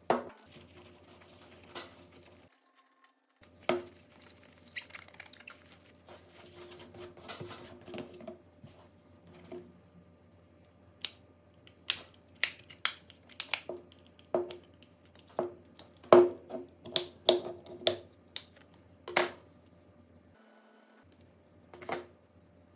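Small hard clicks and taps from tools and phone parts being handled during a phone teardown, irregular and coming thicker in the second half.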